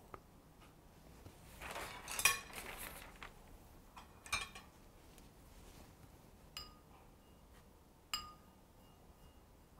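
Brush clinking against a ceramic ink dish as the brush is dipped and worked against the rim: a clattering scrape about two seconds in, and a few separate ringing clinks later on.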